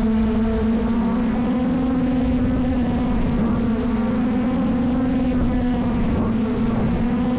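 Quadcopter drone's motors and propellers humming steadily at one pitch, heard close up from a camera mounted on the drone itself.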